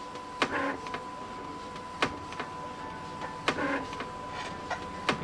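Epson inkjet printer printing a page: sharp clicks about every second and a half, each followed by a short burst of mechanical noise, over a steady high tone.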